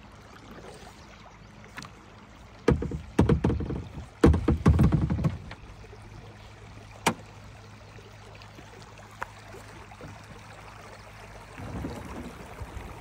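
Kayak moving through a shallow, fast inflowing current: a steady rush of moving water, with a run of loud knocks and thumps a few seconds in and a few more near the end.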